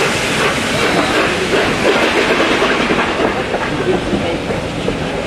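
Pullman coaches rolling past close by, their wheels clattering steadily over the rail joints.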